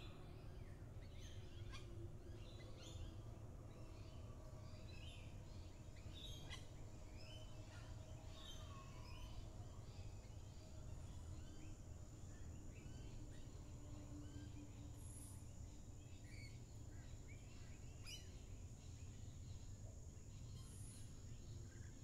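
Many small birds chirping and calling around the recorder, short overlapping calls, busier in the first half. Under them run a faint steady low rumble and a thin high steady tone.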